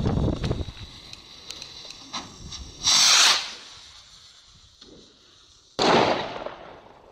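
Firework burst rocket: the fuse crackles faintly, then about three seconds in the rocket lifts off with a loud half-second hissing whoosh. Nearly three seconds later its burst charge goes off with a sudden bang that dies away over about a second.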